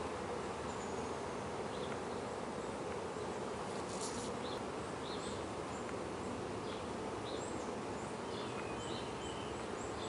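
A honey bee colony humming steadily from an open hive box as its frames are worked, with faint short high chirps scattered over the hum.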